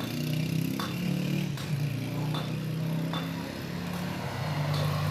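Steady low mechanical hum, engine-like, with a few faint short clicks scattered through it.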